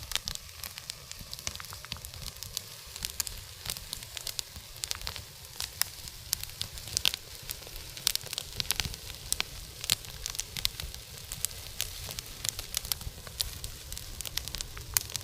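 Fire burning contaminated wooden beehive parts, crackling steadily with many sharp pops and snaps.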